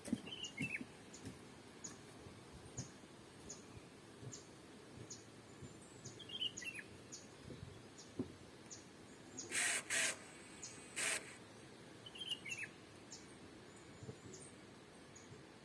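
A bird calling: a short chirp falling in pitch, given three times about six seconds apart, over faint high ticking. About ten seconds in, a few short, loud rustling bursts.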